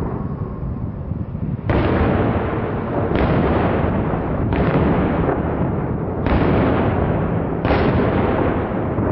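Aerial fireworks shells bursting: five heavy booms about every one and a half seconds, each trailing off in a long rolling rumble.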